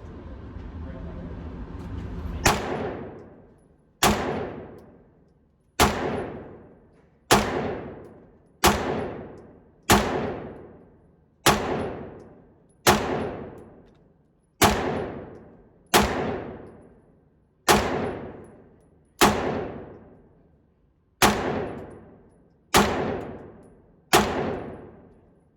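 A 9mm pistol fired fifteen times in a slow, steady string, about one shot every second and a half, each sharp report trailing off in a long fade.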